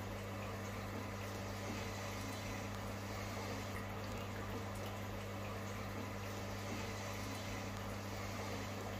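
Aquarium pump running with a low, steady hum and an even hiss of moving water.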